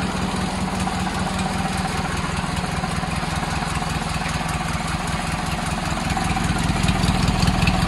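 Lawn tractor's swapped-in Briggs & Stratton opposed-twin engine running steadily through a tall welded exhaust stack with a flap cap, an even rapid firing beat, a little louder near the end.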